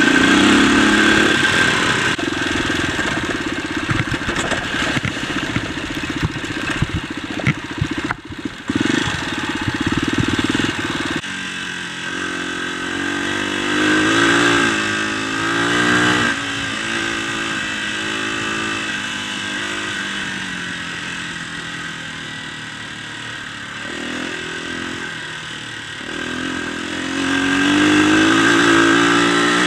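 Dirt bike engine running under way, revving up and easing off as the rider rides, with a brief drop about eight seconds in and swells again later on. Short knocks and rattles from the bike run through the first third.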